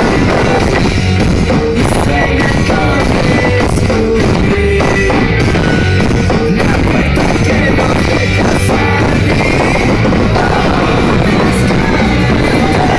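Rock band playing live at a steady, loud level: electric guitars and drums, heard from the crowd.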